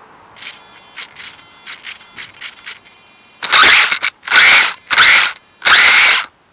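Small RC car's electric motor and gears whirring in throttle bursts: several short blips, then four longer, much louder bursts about a second apart.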